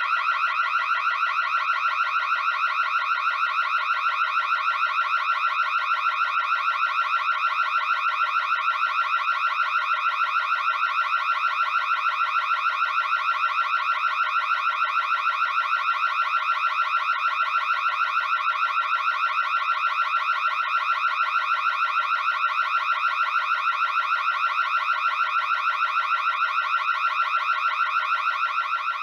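Electronic burglar alarm sounding continuously: a loud, high-pitched tone warbling rapidly and evenly without a break.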